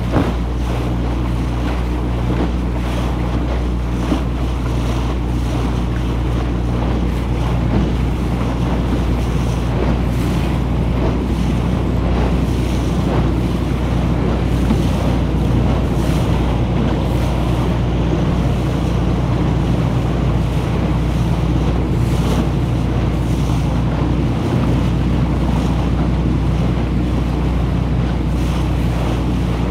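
A small wooden motorboat under way: its engine runs at a steady low hum while water rushes along the hull, with wind buffeting the microphone.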